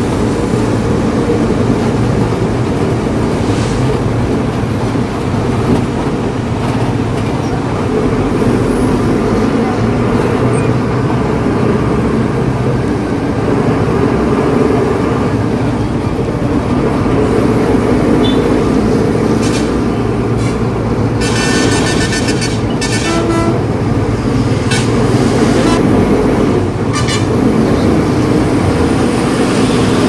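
Steady drone of a BharatBenz truck's diesel engine and road noise inside the moving cab. About two-thirds of the way in, a horn sounds for around two seconds, with a few shorter toots around it.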